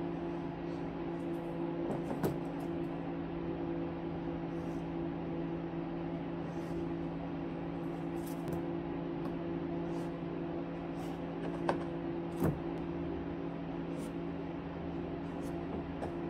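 Steady mechanical hum with several fixed pitches, broken by a few light clicks and taps, about two seconds in and twice near twelve seconds, as plastic net pots and a marker are handled on a plastic tote lid.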